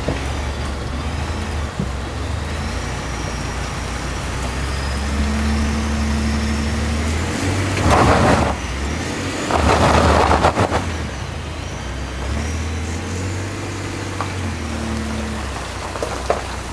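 Pickup truck engine working in four-wheel drive, hauling a boat on its trailer up a wet, submerged boat ramp: a low steady rumble. Two loud rushing noises break in about eight and ten seconds in.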